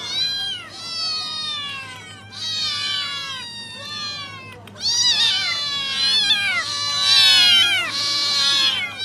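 A cat meowing over and over in a run of drawn-out, falling calls, louder and more insistent in the second half.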